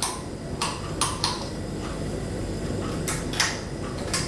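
Spatula scraping and pushing melting coconut oil around a frying pan: several short, irregular scrapes over a steady low hum.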